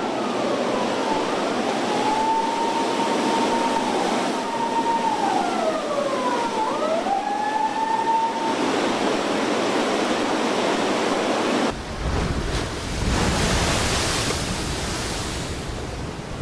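A siren wailing over a steady rush of water. The siren holds one pitch, dips and rises again, and stops about eight seconds in. About twelve seconds in, the sound cuts to a deeper rush of wind and water.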